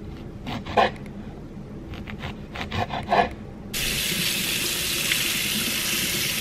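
A serrated knife saws through an orange on a wooden cutting board in several short strokes. A little past halfway, water from a kitchen tap starts suddenly and runs steadily onto raspberries in a metal mesh strainer, louder than the cutting.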